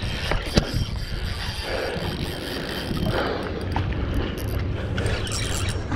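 Shimano Symetre 4000 spinning reel whirring and clicking under load while a hooked fish is being fought.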